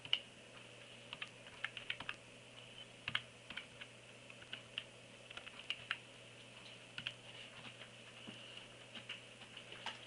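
Typing on a compact mini USB keyboard: quick, irregular clicks of small plastic keys, thinning out to a few scattered strokes near the end.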